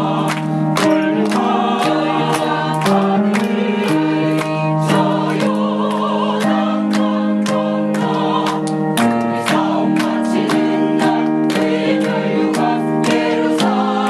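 Church choir singing a hymn in parts with instrumental accompaniment, over a steady beat of about two sharp strikes a second.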